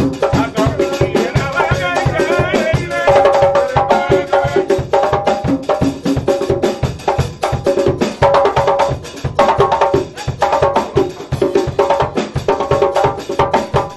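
Live band music with a drum kit playing a fast, steady beat under sustained keyboard chords that come and go in phrases.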